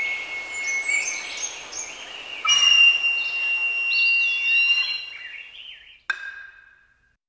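Birdsong: several birds whistling and chirping, with long held whistles under quick rising and falling chirps, fading out over the last couple of seconds. A single sharp click sounds just after six seconds.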